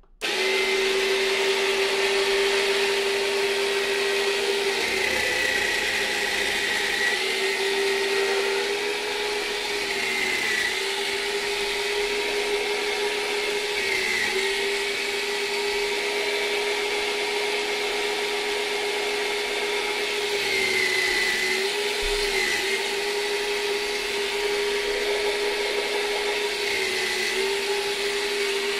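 Yonanas frozen-dessert maker's motor running with a steady whine, its pitch sagging briefly several times as it is loaded by frozen pineapple and mango pushed through the chute.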